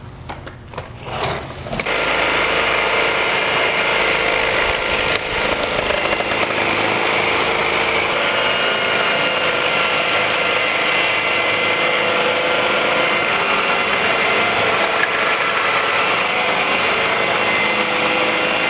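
A few clicks, then about two seconds in the WerkMaster Scarab handheld concrete grinder, driven by a Makita angle-grinder motor, starts and runs steadily. Its 16-grit metal-bond diamond tools are grinding an epoxy coating off the concrete floor.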